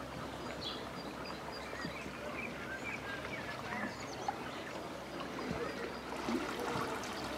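Outdoor canal-side ambience: small birds chirping over a steady low background rumble, with a brighter hiss coming in near the end.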